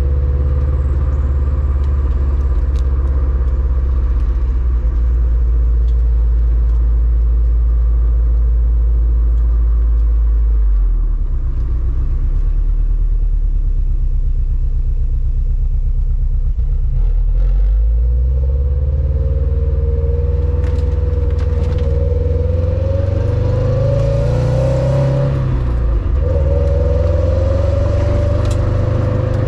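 2021 Subaru WRX STI's turbocharged 2.5-litre flat-four boxer engine idling with a deep rumble through its stock quad-tip exhaust. Near the end it is revved gently once, the pitch climbing and then dropping back to idle.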